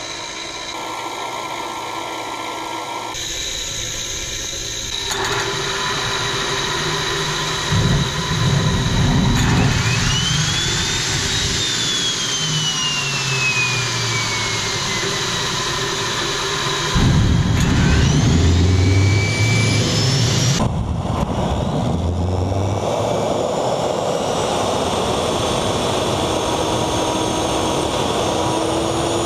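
Small homemade turbojet engine starting up on hawthorn tincture (an alcohol fuel) instead of kerosene: a turbine whine rises and then slowly falls, rumbling combustion sets in about eight seconds in and again after seventeen seconds with a second rising whine, then the engine runs steadily.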